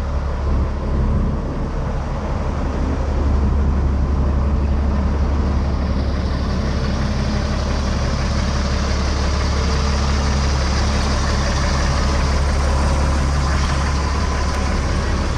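2001 Sterling Acterra service crane truck's engine idling steadily.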